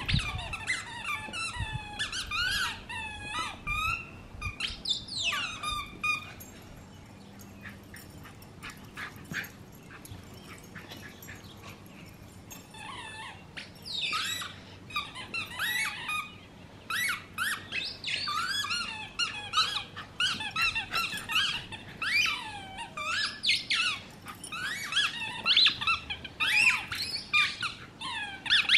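Dog squeaky toys squeaked over and over in quick runs as two miniature schnauzers chew them. Partway through the first half there is a lull of several seconds.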